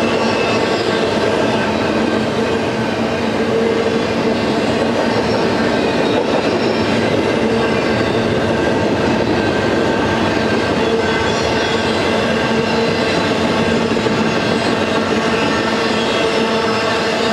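Train of empty freight cars rolling past on steel rails: a steady, loud rumble of wheels with constant ringing tones over it, without pause.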